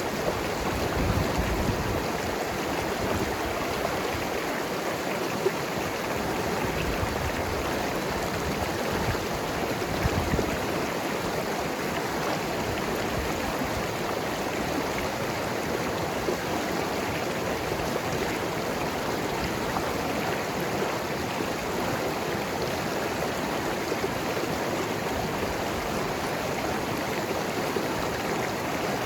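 Mountain river flowing and gurgling over rocks, a steady rushing of water.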